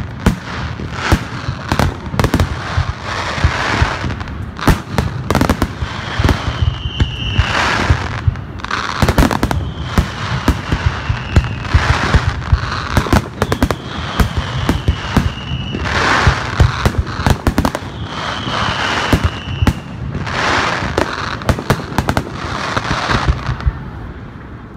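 Fireworks display: aerial shells bursting in a rapid run of sharp bangs and crackles, with four long whistles, each falling slightly in pitch, rising above them in the middle. The bangs thin out near the end.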